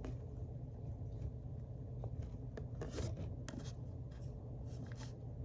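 Faint scattered light clicks and rustles over a steady low hum.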